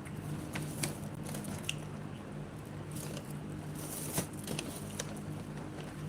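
Eating instant noodle soup with vegetables: wet chewing with small scattered clicks and a few short slurps, over a faint steady hum.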